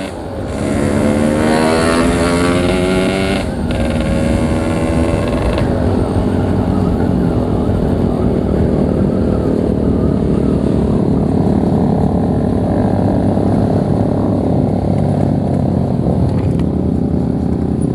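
Yamaha RX King's 135cc single-cylinder two-stroke engine accelerating hard: its pitch rises for about three seconds, dips at a gear change, rises again, then settles into a steady cruise with wind rush on the microphone.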